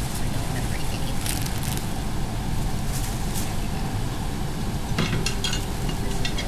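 Tissue paper crinkling in short bursts as it is scrunched and stuffed into a paper gift bag, heard over a steady low background rumble.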